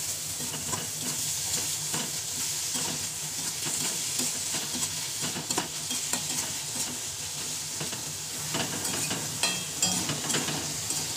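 Chopped chicken and vegetables sizzling as they stir-fry in a metal wok, stirred continuously so the utensil scrapes the pan in irregular strokes. The chicken has just gone in raw and is being seared with the vegetables.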